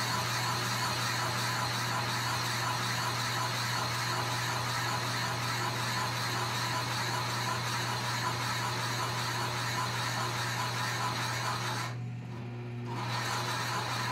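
Drill press running with a large boring bit cutting into a log: a steady motor hum under the rasping of wood being bored out. About twelve seconds in the cutting noise drops away for about a second, leaving the hum, then comes back.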